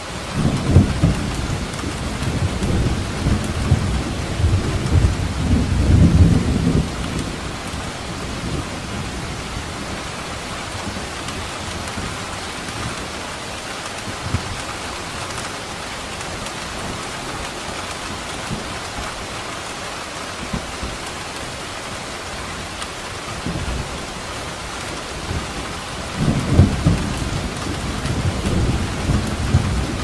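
Steady rain with thunder: a long, deep rumble over the first several seconds, then rain alone, and thunder rolling in again near the end.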